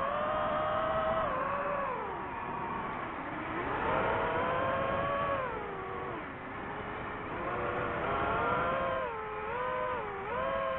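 DJI FPV drone's motors and propellers whining, the pitch falling and rising as the throttle changes: a deep dip about three seconds in, and quick up-and-down wavering near the end.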